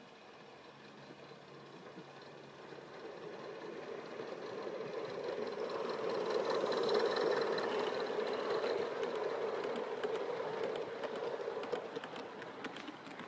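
Gauge 1 live steam model of an NSWGR C32 (P6) locomotive running past, its sound growing as it approaches and loudest about seven seconds in as the engine goes by. Its carriages follow, with sharp wheel clicks near the end.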